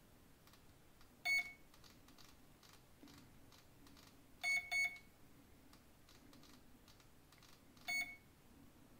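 Flycolor boat ESC sounding short beeps through the brushless motor as it cycles through the running-mode options: a single short beep about a second in, which signals forward, then a pair of short beeps about halfway, which signals forward and reverse, and another single beep near the end.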